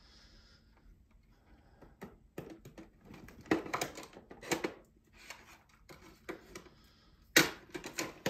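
Plastic cassette tapes and their cases being handled: a scattered series of clacks and rattles, the loudest about seven seconds in.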